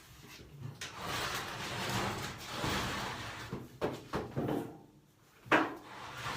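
Scraping and sliding of dryer vent parts being handled, then several sharp knocks, the loudest about five and a half seconds in.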